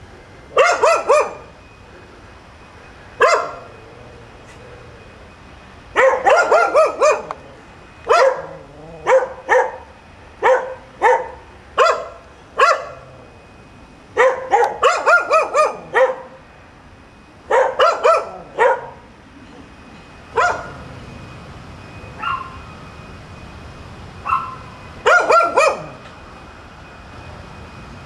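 Dogs barking persistently, in quick volleys of several barks broken by single barks and pauses of a second or two. It is nuisance barking by dogs left alone until their owner gets home.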